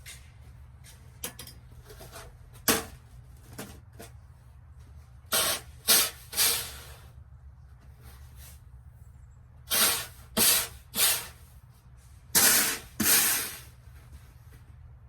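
Footsteps crunching through snow, in three short runs of two or three steps about half a second apart, over a steady low rumble.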